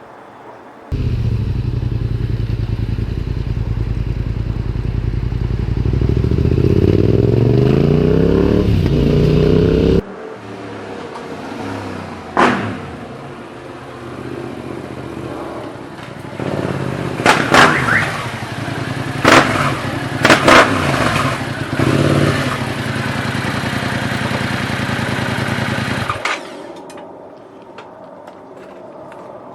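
Yamaha MT-07 parallel-twin engine through an Akrapovic carbon exhaust with the dB killer in. It runs loud and steady close up, then after a sudden cut it is heard in a quieter take with several sharp, loud peaks. The engine sound stops about 26 seconds in.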